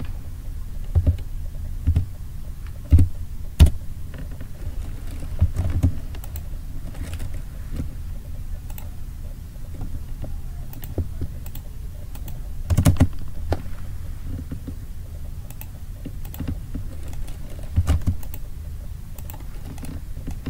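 Computer keyboard keys and mouse buttons clicking at irregular intervals, some clicks in quick pairs, over a steady low hum.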